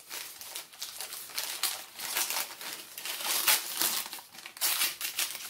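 Paper wrapping crinkling and tearing as it is pulled off a small package by hand, in irregular crackly rustles.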